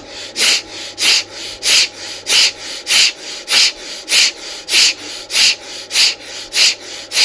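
Bhastrika (bellows breath) pranayama: forceful breaths in and out through the nose with the mouth closed. The breaths come in a steady rhythm of about one and a half a second, each loud rush of air followed by a softer one.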